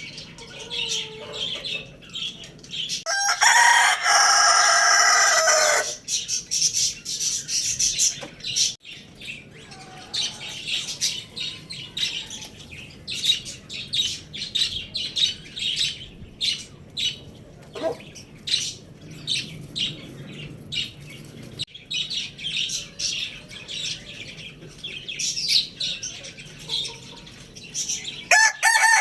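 A rooster crows once, loud and long, about three seconds in, over steady high chirping and twittering from many small birds.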